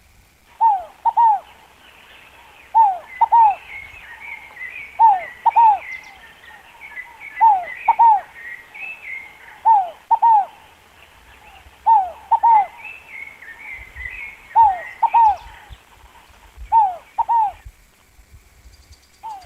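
Scaled dove (rolinha fogo-apagou) calling over and over, a low coo of two falling notes repeated about every two seconds. Small songbirds twitter more faintly and higher behind it.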